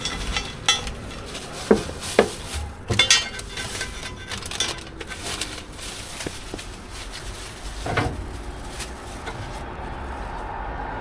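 Metal kitchen utensils and pans clinking and knocking as food is handled at a fried chicken cutlet stall: a handful of sharp knocks, the loudest in a cluster around two to three seconds in and one more about eight seconds in.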